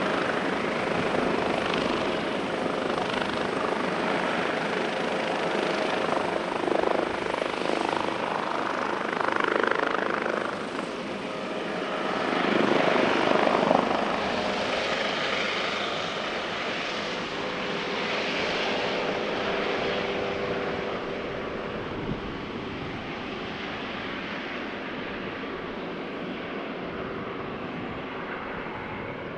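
Airbus Helicopters H145 twin-turbine helicopter taking off: a steady mix of turbine and rotor noise with a few faint steady tones, swelling to its loudest a little before halfway, then fading and growing duller toward the end as it climbs away.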